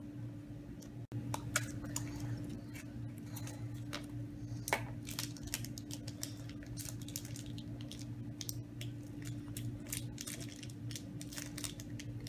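Irregular small clicks and crinkles of hands working a Kinder Surprise egg's plastic toy capsule and unwrapping the paper-wrapped toy pieces inside, over a steady low hum.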